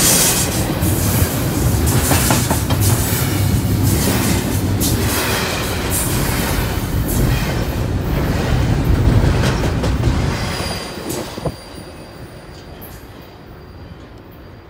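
Double-stack intermodal container freight train passing close by, its wheels rumbling and clattering on the rails. About eleven seconds in the noise drops away sharply as the last car goes past, leaving a fainter rumble from the receding train.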